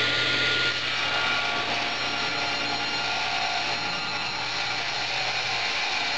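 Table saw running and ripping a 3/4-inch hardwood board, which is fed through the blade with push blocks.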